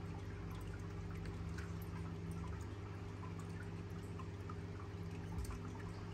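Steady low electrical hum with faint, scattered dripping.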